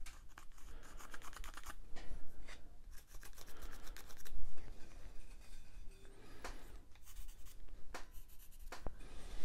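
Pencil scratching marks onto a wooden spindle blank, in several short runs of quick strokes with pauses between.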